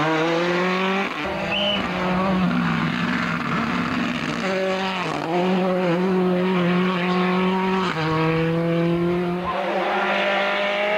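Ford Escort RS Cosworth Group A rally car's turbocharged two-litre four-cylinder engine pulling hard under full throttle. Its pitch climbs and drops back at each upshift, several times over.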